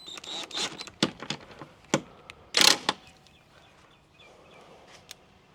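Hand-tool work on a car's tail light: a run of clicks, knocks and scrapes as the Phillips screws are put back in, the loudest a short scraping burst just before three seconds in, then quiet handling noise.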